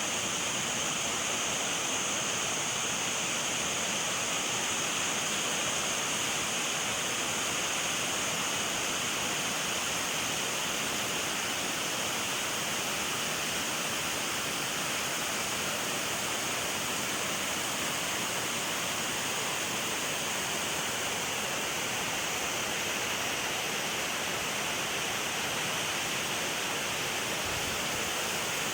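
Shirahige Falls waterfall: water pouring down a rock face, a steady, unbroken rush strongest in its hissing upper range.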